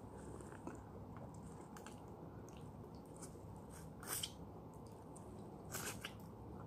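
Faint sounds of a person biting, sucking and chewing on a peeled lemon, with two brief louder sucking noises about four and six seconds in, over a low steady hum.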